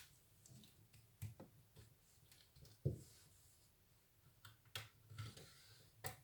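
Sparse faint clicks and light knocks from a laptop's plastic bottom cover being handled and pried at its snap clips with a plastic pry tool; a duller knock about three seconds in is the loudest.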